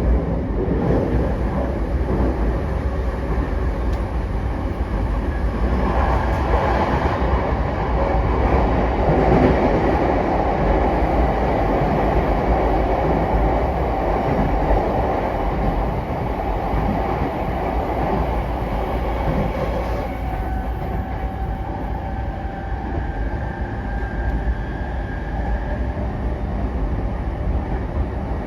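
JR E233 series 8000 subseries electric train running at speed, heard from inside a passenger car: steady wheel-on-rail and motor noise. About 20 s in, a faint steady whine rises out of the rumble.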